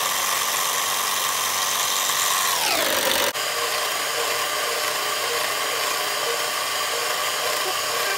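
Electric hand mixer running, its beaters whipping coffee, sugar and water into foam in a glass bowl: a steady motor whine that glides down in pitch about three seconds in, cuts for an instant, then runs on steadily at a lower pitch.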